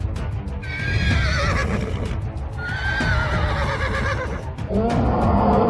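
A horse whinnying twice, each call wavering and falling in pitch, over background music.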